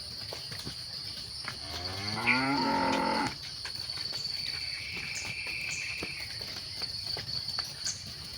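A cow moos once, a single call about a second and a half long with its pitch rising a little, over the steady high chirring of insects.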